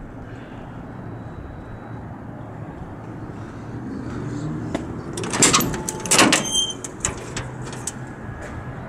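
A metal equipment compartment door on a fire engine being unlatched and opened, with two loud clanks and a rattle about five and six seconds in, then a few lighter clicks, over a steady low hum.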